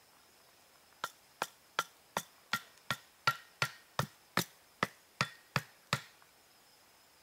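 Hatchet striking the top of a wooden stake, driving it into the ground: about fourteen sharp wooden knocks, roughly three a second, starting about a second in and stopping near the end.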